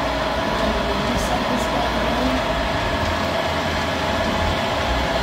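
Warner & Swasey turret lathe running steadily, a constant machine drone with a steady mid-pitched whine, as the turret is fed in by its hand lever. Two faint light ticks sound about a second in.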